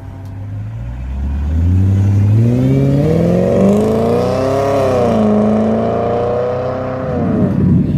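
A tuned car's engine revving hard as it accelerates away. Its pitch climbs steeply and grows louder for about two seconds, holds high with a brief dip midway, then falls off near the end.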